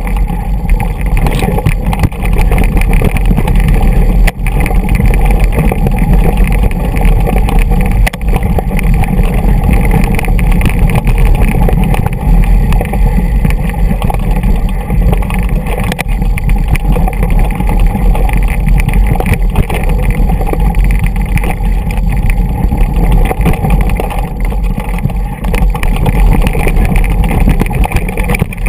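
Mountain bike descending a rough, rocky trail, recorded on a GoPro: a loud, steady rumble of wind and rolling noise, with the bike rattling and a few sharp knocks as it hits stones.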